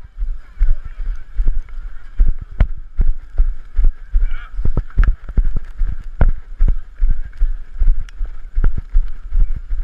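A runner's footfalls jolting the body-worn action camera, a heavy thud about three times a second at a steady running pace, over a steady hiss.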